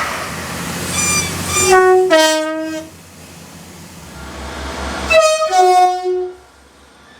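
Train horn sounded twice, each blast stepping from a higher note down to a lower one, with a couple of short toots just before the first. Between the blasts the train rumbles.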